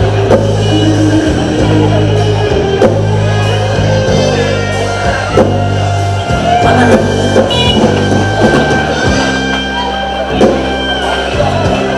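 Live rock band playing loud: electric guitar over bass guitar and a drum kit.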